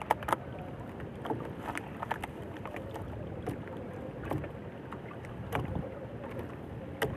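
Wind buffeting the microphone on a small fishing boat at sea, with scattered light clicks and knocks from handling gear on board.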